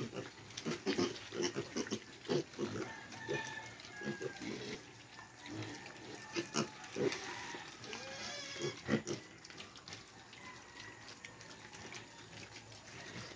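A group of piglets under two months old grunting as they eat dry feed off a concrete floor, with many short clicks and crunches of chewing and snouts in the feed.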